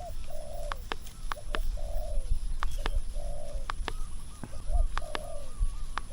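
Spotted dove cooing over and over: a short note followed by a longer falling coo, about once a second. Strong wind rumbles on the microphone, with scattered sharp clicks.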